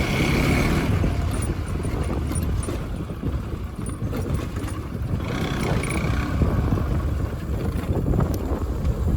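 Motorcycle riding noise picked up by a phone on a helmet mount: steady wind rush over the microphone mixed with the engine running.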